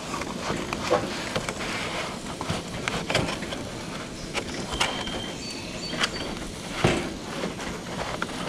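Burger patty sizzling on a hot griddle over a propane camp stove: a steady frying hiss with scattered pops and clicks.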